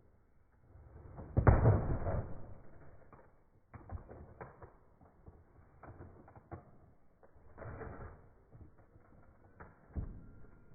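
Cardboard set box being opened and its contents handled: one loud rustling stretch about a second and a half in, then scattered light clicks and rustles.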